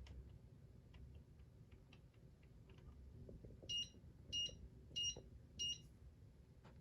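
Top Union Top-Touch electronic ceiling fan control beeping four times in quick, even succession, after a few faint clicks. The beeps come as the fan is set into its automatic demo program.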